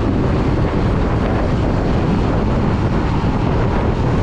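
Motorcycle riding along at speed: a steady rush of wind across the microphone, with the engine and road noise running beneath it.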